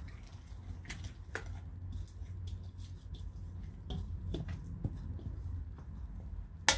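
Spatula stirring a thick mayonnaise dressing in a mixing bowl: faint wet squishing with scattered light taps against the bowl, and a sharp knock near the end.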